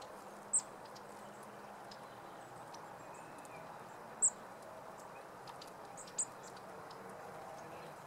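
Three short, high-pitched bird chirps, spaced a few seconds apart, over a quiet outdoor background, with a few faint ticks that fit a blue tit pecking at a netted fat ball.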